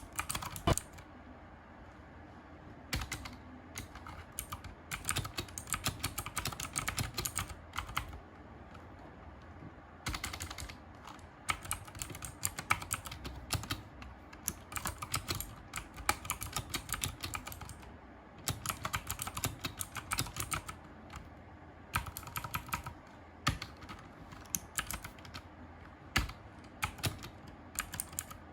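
Mechanical keyboard being typed on: runs of quick clicking keystrokes in bursts, with short pauses between them.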